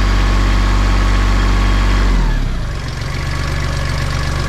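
Tractor engine running steadily at raised revs, then throttled back about two seconds in, its pitch dropping over half a second to a lower steady idle.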